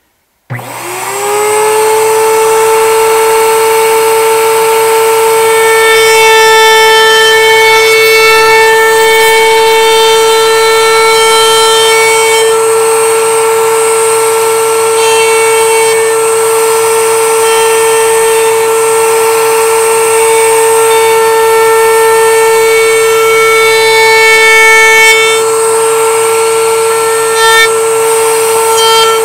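Router in a router table switched on about half a second in, spinning up quickly to full speed and then running with a loud, steady whine while the edges of a pine trivet are fed past its 3/16-inch round-over bit.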